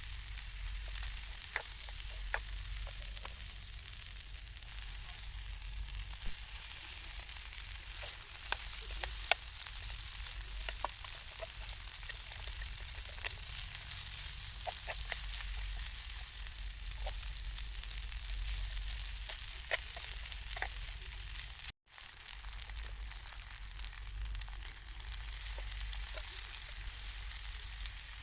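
Food sizzling in a hot pan: a steady hiss with frequent sharp crackles and pops. There is a brief cut about two-thirds of the way through.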